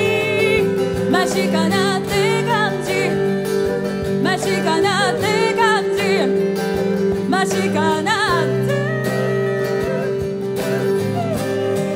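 A woman singing with her own strummed acoustic guitar. Her voice stops about nine seconds in and the guitar carries on alone.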